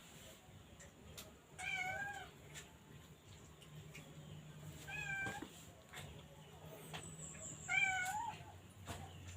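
A cat meowing three times, a short call every few seconds.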